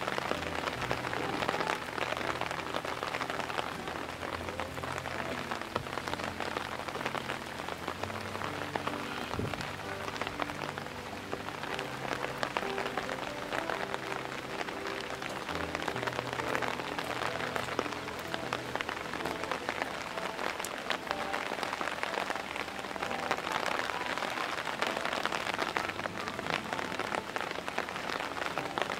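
Heavy rain pattering steadily on the ground and the pool, with soft background music of held low notes underneath.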